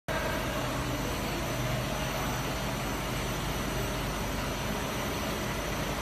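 Cable extrusion line running: a steady machinery hum and hiss with a low drone underneath and a few faint steady whines above.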